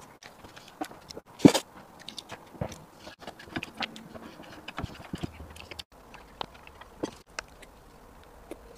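Close-miked mouth sounds of eating soft sweet taro puree from a wooden spoon: wet smacks and clicks of lips and tongue, irregular, the loudest about one and a half seconds in.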